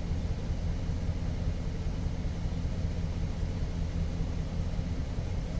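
2007 GMC Sierra engine idling with a steady, slightly uneven low rumble. The engine has a misfire, mainly on cylinder 4, that has persisted through new plugs, a coil swap and a change of wires.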